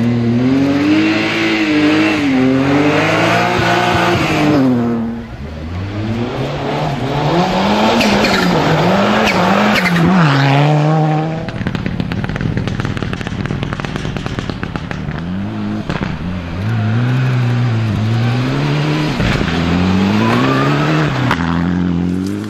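Rally car engines revving hard, the pitch climbing and falling again and again through gear changes and lifts as the cars pass at speed. For a few seconds in the middle there is only a rushing noise with no clear engine note, and then another engine revs up and down.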